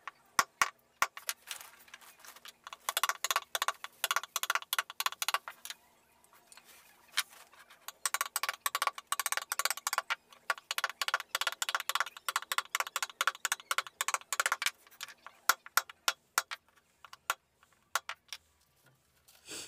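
Carving chisel cutting into a wooden panel: fast runs of sharp tapping clicks as the wood is chipped away, then scattered single taps near the end.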